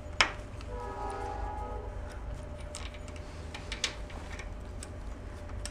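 Small metallic clicks and taps of a screwdriver working the two screws that hold the ignition breaker points on a Kohler K-series engine, with one sharper click near the start and a few lighter ones later.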